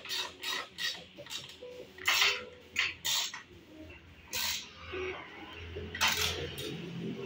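Protective tape being peeled off a new motorcycle's fuel tank and plastic side panels, in several short tearing pulls.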